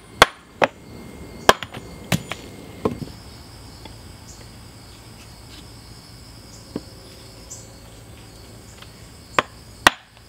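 Wooden knocks as the new handle of a Swedish hammer is driven into the steel head to seat it, a log used as a club striking the end of the handle. There are about six sharp knocks in the first three seconds, a pause, then two more near the end.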